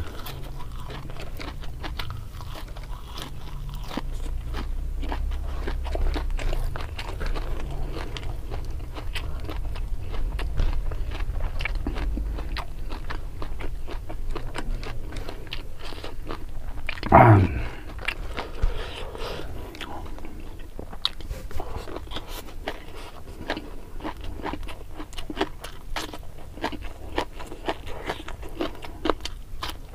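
A person eating with the mouth close to the microphone: crunching bites of raw vegetables and steady chewing, full of small irregular clicks and crackles. One louder short sound comes about seventeen seconds in.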